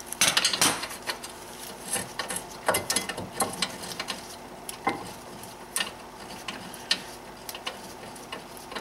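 Hand socket ratchet clicking in irregular short runs, with metal clinks, as the 16 mm caliper bracket bolt is turned out by hand. The clicks are busiest in the first second.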